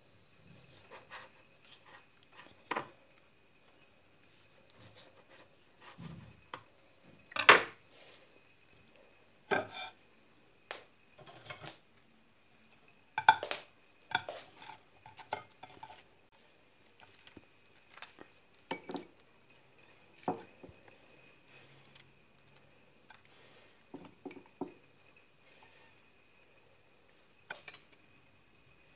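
Kitchen utensils and dishes handled while making a sandwich: a knife slicing sausage on a wooden cutting board, then scattered clinks, taps and knocks of a plate, a jar and a spoon, with the loudest knocks about seven and a half and thirteen seconds in.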